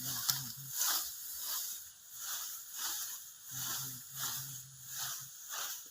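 Common quail calling: a rhythmic series of short, sharp, hissy notes about twice a second, with two runs of low, rapid buzzing pulses.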